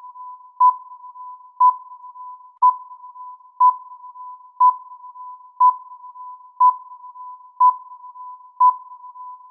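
Countdown timer sound effect: a short electronic beep once a second, over a quieter steady tone at the same pitch.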